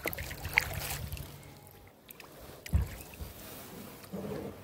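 Kayak being paddled: water splashing and dripping off the paddle, with light knocks, and one louder low thump a little after halfway.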